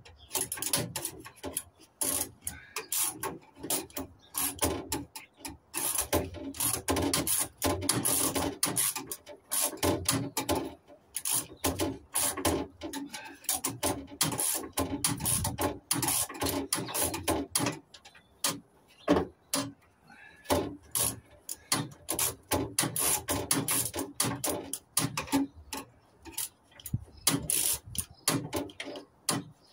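Hand tools working metal parts of a gas boiler being stripped for scrap: rapid runs of metallic clicking and scraping in bursts, with short pauses between.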